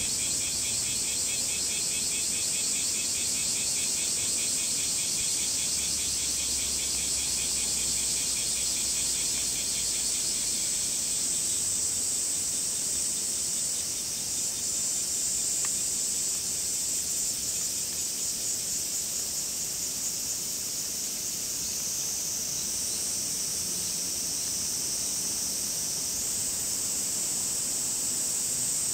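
Cicadas singing: a steady high-pitched drone, joined by a second, pulsing cicada call that dies away about a third of the way in.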